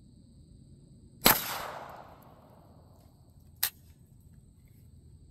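A single shot from a Century Arms AK 9mm carbine, a sharp crack with a short fading echo. A shorter, sharp click follows about two and a half seconds later.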